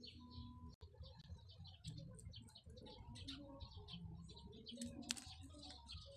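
Small birds chirping faintly and continuously over a low background rumble, with a single sharp click about five seconds in.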